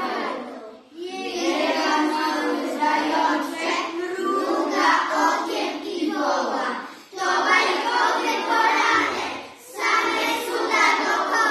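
A class of young schoolchildren singing together in unison, in phrases broken by three short pauses for breath.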